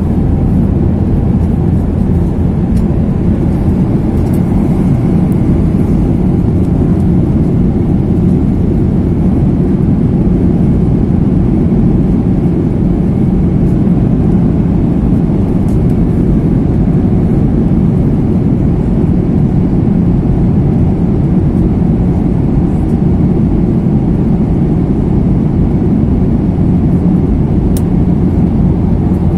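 Steady cabin noise of a Boeing 737 jet airliner at cruise: a loud, even rush of jet engines and airflow, deep and unchanging throughout.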